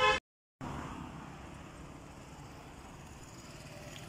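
Distant road traffic, a faint steady hum and hiss. It opens with a loud, brief pitched sound that is cut off at once by a short gap of dead silence.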